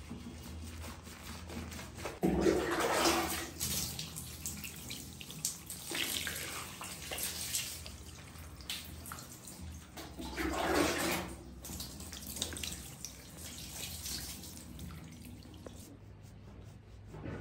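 Water poured over a soapy cat's wet fur to rinse it during a bath, splashing and running off in three louder surges about two, six and ten seconds in.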